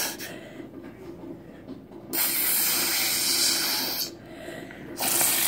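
Air blown hard through a plastic drinking straw into glitter slime to push up a bubble: a rushing puff of breath about two seconds in that lasts about two seconds, and another starting near the end.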